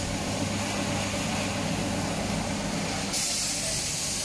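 Steady low machine hum of an electric motor in a spray-paint shop, and about three seconds in a hiss of compressed air starts and keeps going.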